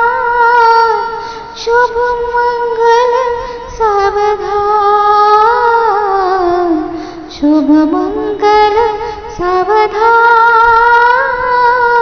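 A woman singing a Marathi mangalashtak, the blessing verse sung at a wedding, in a slow, ornamented melody that sinks low about seven seconds in and climbs back up.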